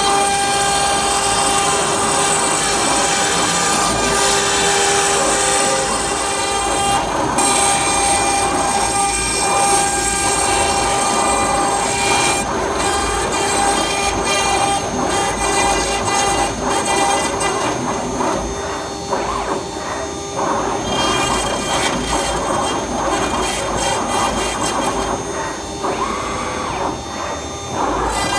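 CNC router spindle running with a steady high whine while its small router bit cuts into a wooden board, with the rasping of wood being machined throughout.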